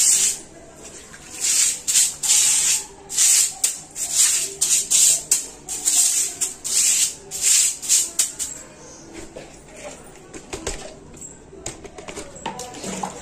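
Stiff bristles scrubbing a stone-tiled floor in quick hissing strokes, about one and a half a second. The strokes stop about eight seconds in, leaving softer scraping and a few light knocks.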